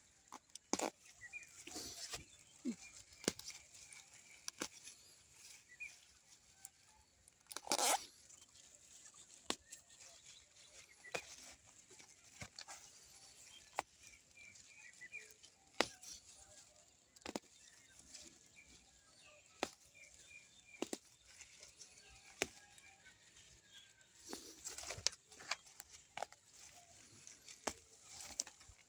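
Irregular sharp knocks and clicks, a dozen or so spread unevenly, with one longer scraping burst about eight seconds in, over faint high chirps.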